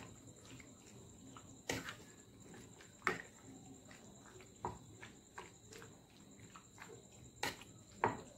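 Metal spoon clinking and scraping against a bowl while wet, marinated chicken pieces are stirred, with soft squelching. Irregular sharp knocks, about five of them louder than the rest.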